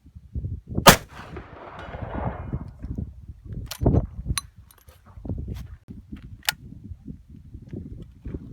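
A single shot from a Martini-Henry .577/.450 rifle firing a black-powder cartridge about a second in, with an echo that trails off over the next second or two. Several lighter clicks and knocks follow later.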